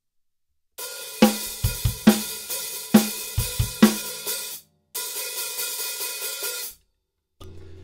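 Drum kit playing a rock/punk beat, with a loose, sloshy hi-hat washing over kick and snare; the snare lands a little more than once a second. After a brief break the sloshing hi-hat carries on alone, then stops.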